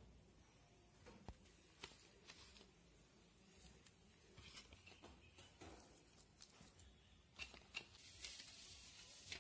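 Faint scattered clicks and rustles of grated coconut filling being scooped by hand and dropped onto batter in a steel bowl, with a short rustle near the end as the bowl is moved.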